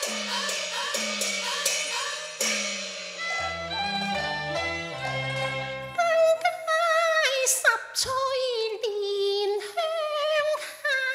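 Cantonese opera music. The ensemble repeats a short rising phrase, then plays low held notes. About six seconds in, a louder, sliding, wavering melody line takes over, with a couple of sharp percussion strokes around eight seconds.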